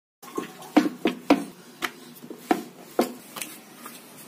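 Chapathi dough being rolled out and flattened on a wooden board: about seven sharp, irregular knocks and taps.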